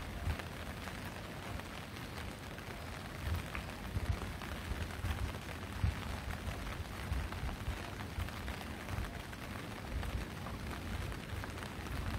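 Light rain falling steadily, with irregular low thumps on the microphone.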